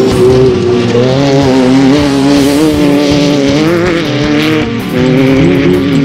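Off-road race car engine running hard as the car comes down a dirt desert track, its pitch rising and falling repeatedly with the throttle.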